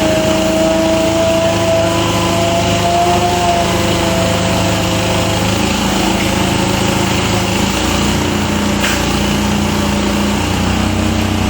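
A small engine runs steadily in the background, its pitch drifting slightly upward in the first few seconds. There is one short click about nine seconds in.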